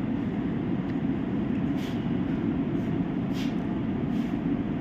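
Steady low rumbling room noise of a restaurant dining room, with a few faint short clicks.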